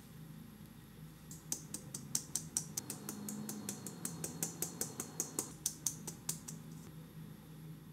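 Fine-mesh metal sieve being tapped by hand to sift cake flour into a bowl: a quick, even run of light taps, about five a second, starting about a second and a half in and stopping about six and a half seconds in.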